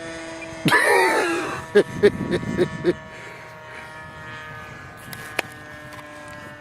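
OS LA 65 two-stroke glow engine of an RC plane buzzing steadily in flight, at a distance, its pitch easing slightly lower. A louder, voice-like burst comes about a second in, and a single click comes later.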